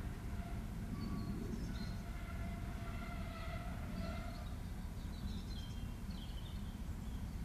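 Class 73 electro-diesel locomotive idling on its diesel engine, a low steady rumble, while birds sing with short high chirps and whistles.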